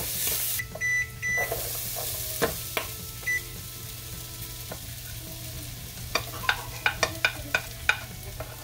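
Diced potatoes tipped into a hot frying pan, sizzling, with two short electronic beeps about a second in and a third a couple of seconds later. In the last few seconds a wooden spatula taps and scrapes the pan about three times a second as the food is stirred.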